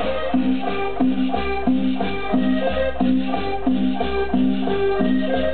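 Accordion cumbia played loud over a dance sound system, with a shaker keeping time. A deep bass beat kicks in right at the start and pulses evenly under the melody.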